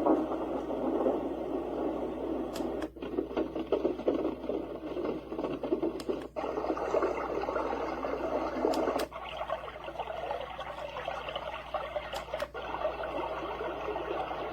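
Sleep sound machine playing its soothing noise-type sounds through its small speaker, switched to a different sound about every three and a half seconds. Each switch has a brief gap, with a faint click just before it as the sound button is pressed.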